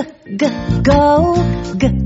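Children's song backing music with acoustic guitar, with a sung word at the start.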